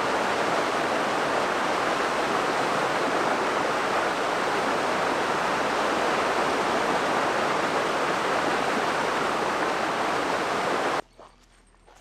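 Steady, loud rush of falling water, like a waterfall or spillway, that cuts off suddenly about eleven seconds in.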